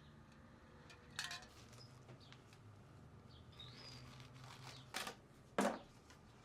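A few sharp clanks and clicks of tools or parts being handled during an oil change, the loudest about five and a half seconds in, with faint bird chirps between them.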